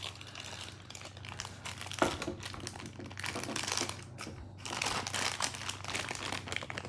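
Plastic packaging crinkling and rustling as it is handled and opened, in irregular bursts that get stronger about two seconds in and again near the five-second mark.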